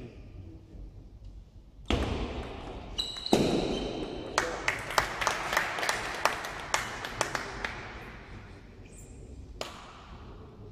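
Table tennis rally: a quick run of sharp clicks as the celluloid ball strikes the bats and table, about three a second, over a rush of noise that starts about two seconds in and fades away.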